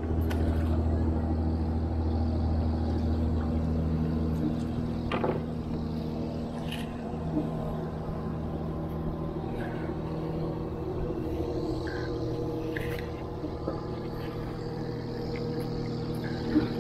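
A boat engine running with a steady drone; its deepest part drops away about four seconds in. A few faint knocks come through now and then.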